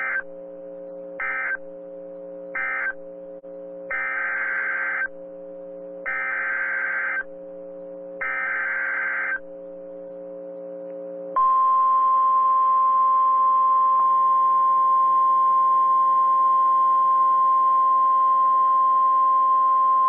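NOAA Weather Radio Emergency Alert System tones. First come three short end-of-message data bursts, then three longer SAME header data bursts. These are followed by the steady 1050 Hz Weather Radio warning alarm tone, held for about nine seconds, which signals that a new warning is about to be read.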